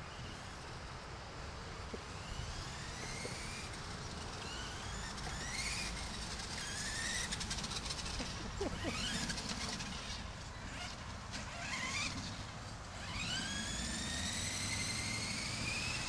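The small electric drive motor of a remote-control toy pumpkin whines in short bursts, each rising in pitch as it speeds up, with a longer rising whine from near the end. A steady low rumble sits underneath.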